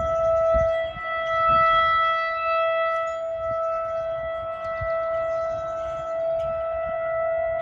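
Outdoor warning sirens sounding a steady, unwavering tone during a monthly test. The tone swells and fades in loudness every few seconds.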